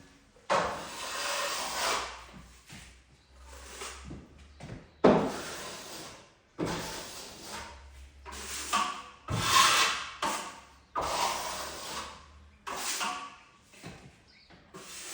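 Steel finishing trowel scraping stiff joint compound across plasterboard in a series of strokes, each a second or two long with short pauses between, as a second coat is spread over a taped butt joint.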